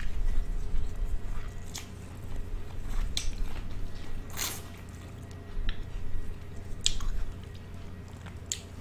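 Close-miked biting and chewing of sweet corn on the cob: wet, squishy chewing broken by about six short, crisp bites.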